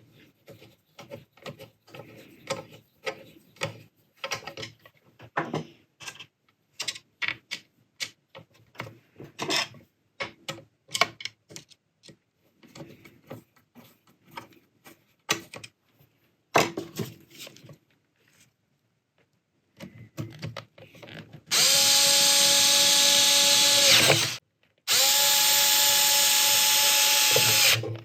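Small parts being handled and fitted, with scattered clicks and light knocks. Then a handheld power drill runs twice, for about three seconds each time, with a steady whine that drops slightly as it stops, as screws are driven while the overlocker's base goes back on.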